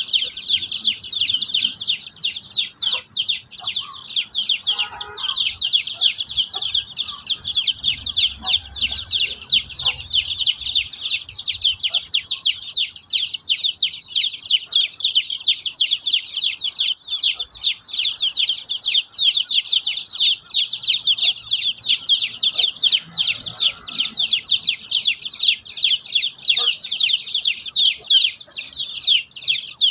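A flock of young chickens peeping nonstop: many short, high, falling peeps overlapping into one continuous chorus.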